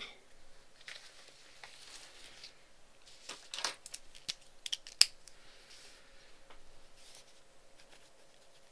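Close-miked handling of paper and stationery: soft rustling with a cluster of sharp clicks and snaps in the middle, the loudest about five seconds in.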